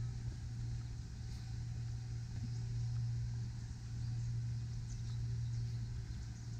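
Steady low rumble with a few faint light ticks over it.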